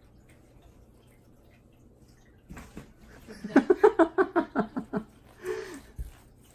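A person laughing close to the microphone: a quick run of about ten short ha-ha bursts starting about two and a half seconds in, then a brief falling vocal sound.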